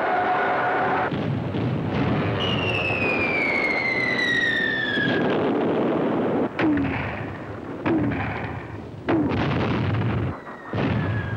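Battle sound of artillery fire over a steady rumble. A long falling whistle of an incoming shell comes first, then three sharp blasts a little over a second apart, and another falling whistle starts near the end.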